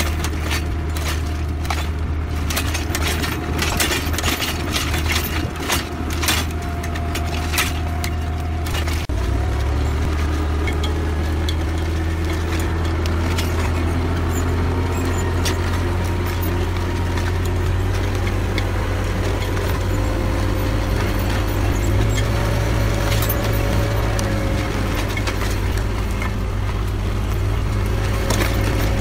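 Tractor engine running steadily while pulling a disc hoe through vineyard soil. Many sharp clicks and knocks sound over it in the first part, and the engine note shifts about nine seconds in.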